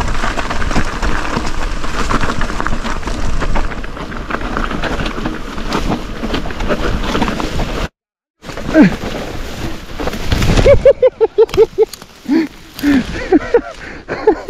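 Mountain bike rolling down a rough, rocky trail: a continuous clatter of the bike and tyres over the ground, with wind noise on the mic. After a brief break about eight seconds in, there are sharp knocks and a run of short squeals and yelps that rise and fall.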